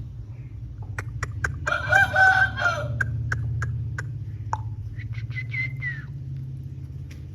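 Lasani Aseel rooster crowing, a short crow of about a second starting about two seconds in, followed by a shorter, higher call that falls at its end. A series of sharp clicks runs through the first half, over a steady low hum.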